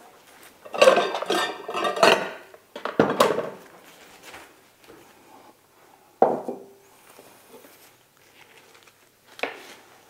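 Kitchen dishes clattering as a bowl is fetched: a burst of clinking and rattling about a second in, then a few separate knocks, one with a short ring.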